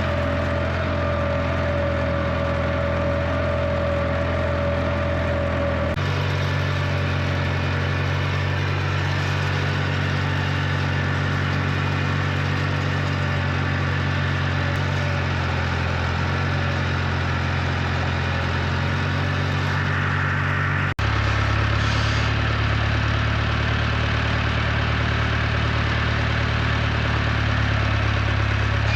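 A vehicle engine running steadily, its low drone changing abruptly in pitch twice, about six seconds in and about twenty-one seconds in.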